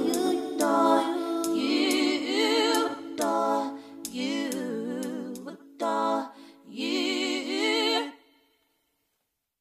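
A woman's singing voice holding a series of notes with vibrato, separated by short breaths, then stopping abruptly about eight seconds in.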